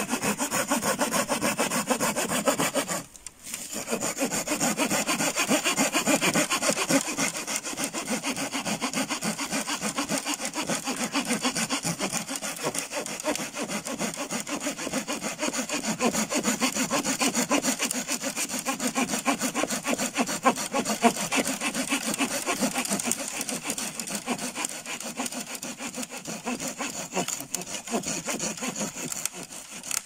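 A small manual saw cutting through a fallen tree trunk with quick back-and-forth strokes. It stops briefly about three seconds in, then saws on steadily until near the end.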